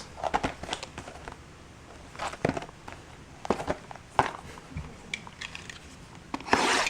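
Plastic shrink-wrap crinkling and crackling as a sealed trading-card box is unwrapped and opened, in scattered short rustles with a louder rustle near the end.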